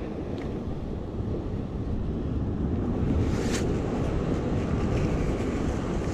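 Steady wind rumbling on the microphone over the wash of ocean surf against rocks, with a brief scratch about halfway through.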